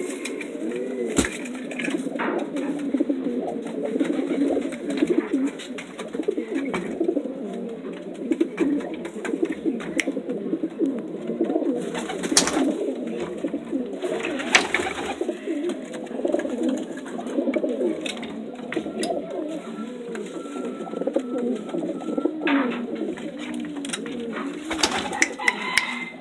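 Homing pigeons cooing in their loft, many low warbling coos overlapping into a continuous sound, with a few sharp knocks now and then.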